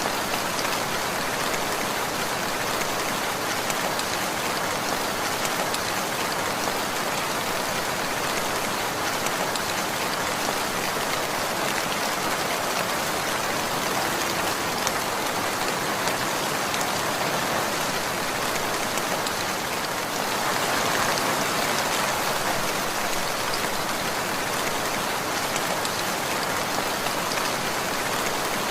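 Steady rainfall, the drops pattering on a surface, briefly heavier about two-thirds of the way in.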